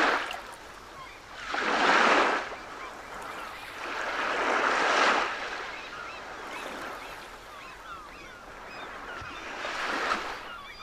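Surf washing onto a sandy beach, swelling and falling back every few seconds, with faint chirping bird calls throughout.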